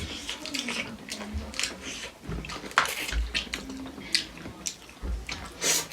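Close-miked eating sounds: wet chewing and slurping of noodles and chicken feet, with many short sharp smacks and clicks.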